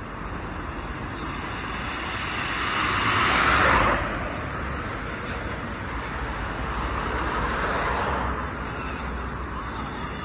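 Road traffic: a steady rush of vehicles passing on a city road, swelling louder about three to four seconds in and again around eight seconds in.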